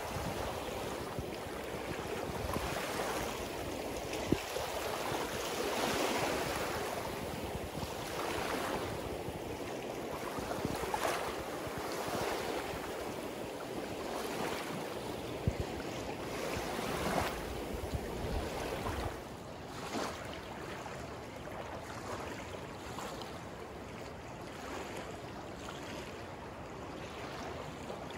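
Small waves from a swollen river washing up on the shore, swelling every two to three seconds, with a low wind rumble on the microphone. About two-thirds of the way through it turns into a quieter, steadier rush of river water.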